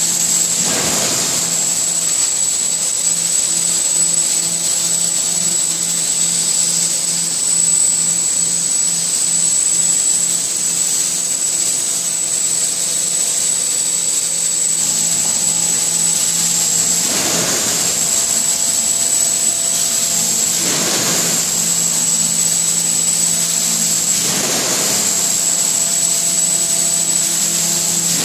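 Theisen & Bonitz Sprint collating machine running steadily during a test run. It gives a constant high whine over a low hum, with a few brief louder swishes.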